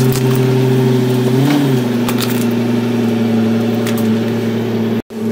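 Ford Excursion SUV engine running at low speed, rising briefly in pitch about a second and a half in as the tyre is driven onto a laptop, with a few light clicks from the laptop under the tyre.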